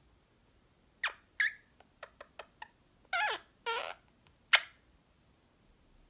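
Indian ringneck parrot making soft, sleepy chatter while dozing: a string of short squeaky chirps, some sliding down in pitch, with a quick run of little clicks in the middle.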